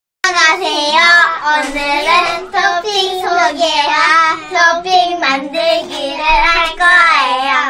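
Young girls singing a tune together, loud and continuous, the pitch wavering as they sing.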